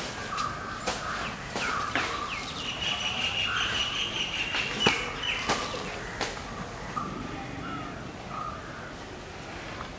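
Birds chirping and calling, with a thin steady high note held for a few seconds in the middle and several sharp clicks scattered through, the loudest about five seconds in.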